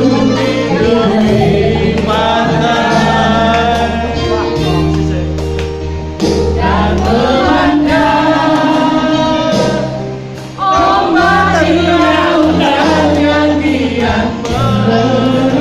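Group singing: a woman and a man sing into microphones while a crowd sings along, over amplified backing music with held bass notes. The music dips briefly about ten seconds in, then carries on.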